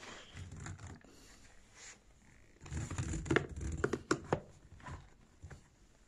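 Handling noises from a canister vacuum cleaner and its coiled ribbed hose: a run of plastic knocks, clicks and rustling, busiest from about three to four and a half seconds in. The vacuum's motor is not running.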